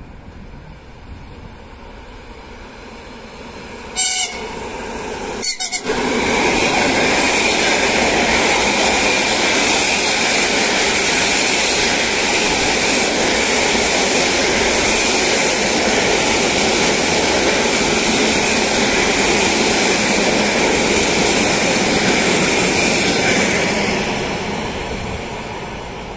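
ER2R electric multiple unit sounding its horn once about four seconds in, then a few quick short toots, then passing close by loudly. A steady high whine runs through the noise, which fades away near the end as the last cars go by.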